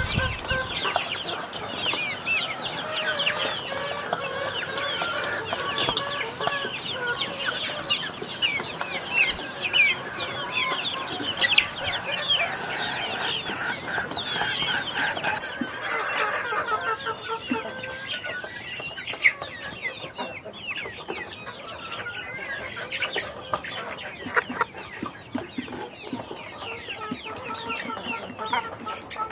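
A crowd of young chicks peeping, many short high chirps overlapping without a break; the chirping is densest in the first half and thins out later.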